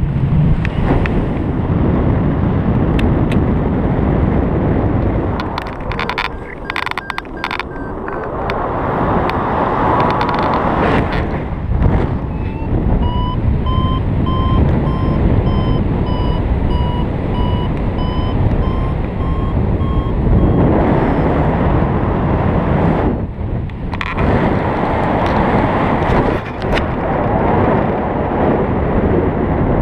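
Wind rushing over the microphone of a paraglider in flight. Starting a little before halfway through, a variometer beeps for about eight seconds, a quick run of beeps at a near-steady pitch, the vario's signal that the glider is climbing in lift.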